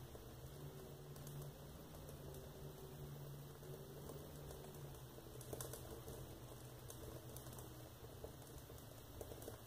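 Faint, sparse crackling of a fire in a closed wood stove, burning logs and a disposable diaper, with a low steady hum underneath.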